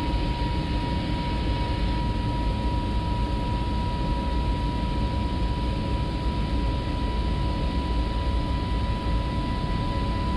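Airbus A321neo flight deck noise during the climb at climb thrust: a steady rush of airflow and engine rumble, heaviest low down, with a constant high tone above it.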